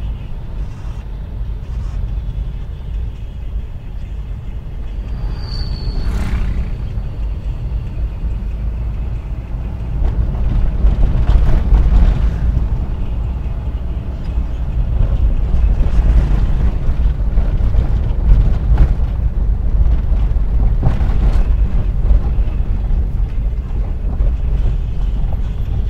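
Suzuki Carry Futura driving down a long mountain descent: a steady low rumble of engine and road, getting louder about ten seconds in. There are a few short knocks and a brief high squeak about five seconds in.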